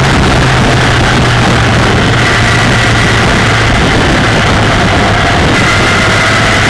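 Kawasaki ZX-10R's inline-four engine droning at a steady motorway cruise, under a loud, constant rush of wind noise over the onboard camera on a wet road.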